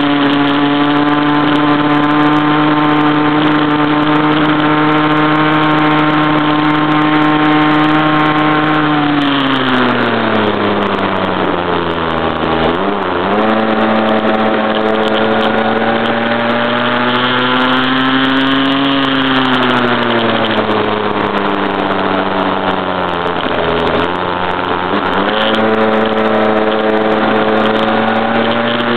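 Stock CAG pocket bike's small two-stroke engine running hard at high revs, heard from on board. The revs hold steady for about nine seconds, fall away, climb again from about thirteen seconds in, ease off around nineteen seconds, and pick back up about twenty-five seconds in as the throttle is opened and closed through the turns.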